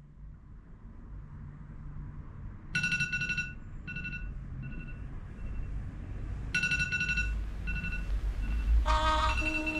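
Phone alarm tone: a rapid electronic trill that sounds twice, each burst followed by fading echoes. Music comes in near the end.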